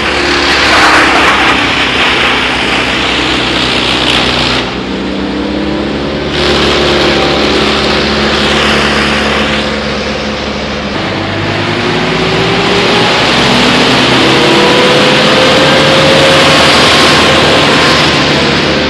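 A wood chipper and the loader's engine running together, loud and steady, with a rushing, grinding noise over the engine hum. The rushing noise drops away for a couple of seconds about five seconds in, then returns, and an engine pitch climbs in the second half.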